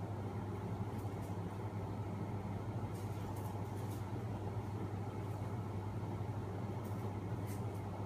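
Home-built magnet engine running: its small electric motor turning a heavy flywheel and a spinning magnet rotor, a steady hum with a few faint, light clicks.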